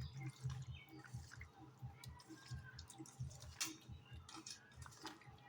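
Faint, irregular wet squelching and small clicks of raw chicken pieces being mixed by hand in a yogurt, salt and turmeric marinade.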